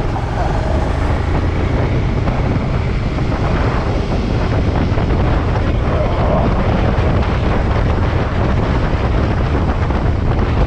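Suzuki motorcycle engine running steadily while riding at road speed, with heavy wind rush on the microphone.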